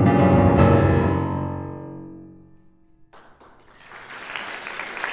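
Grand piano playing its closing notes, the final chord ringing and fading away over about two seconds. Audience applause breaks out about three seconds in and builds.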